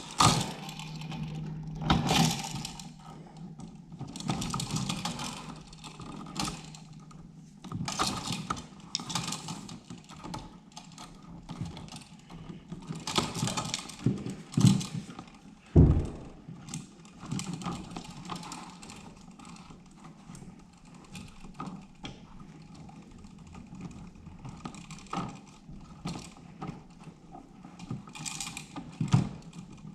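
Electrical wires and wire nuts being handled and twisted together in a switch box: irregular clicks, scrapes and rustles, with one sharper knock about 16 seconds in.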